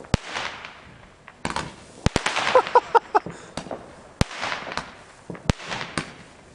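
Fireworks going off: single sharp bangs about a second or two apart, with a quick cluster of cracks about two seconds in. Between the bangs comes a hiss that rises and fades, like rockets and spark fountains.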